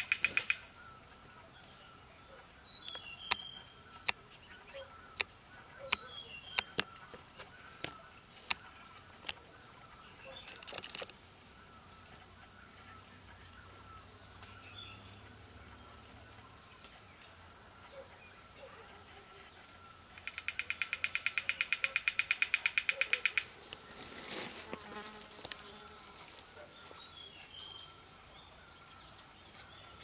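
Woodpecker tapping at a bamboo stem in scattered single sharp knocks, over a steady high insect drone. About twenty seconds in, a loud, fast, pulsing insect buzz lasts about three seconds.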